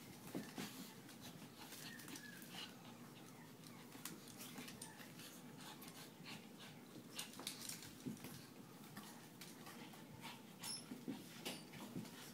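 Two small dogs, a Shih Tzu/pug mix and a black dog, play-fighting on a hardwood floor. There are faint dog noises and frequent quick clicks and scuffles of paws on the boards.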